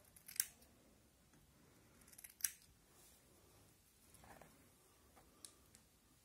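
Hair-cutting scissors snipping through a strand of hair: two sharp snips about two seconds apart, then a fainter one near the end.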